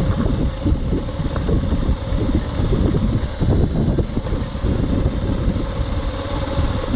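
Single-cylinder engine of a 2002 BMW F 650 GS Dakar motorcycle running steadily at low trail speed, picked up by a phone mounted on the outside of the rider's helmet, with wind rumbling on the microphone.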